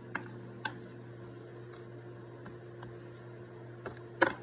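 Wooden spoon and fingers scooping shredded zucchini into a glass jar through a plastic funnel: a few light scattered clicks and taps, the loudest near the end, over a steady low hum.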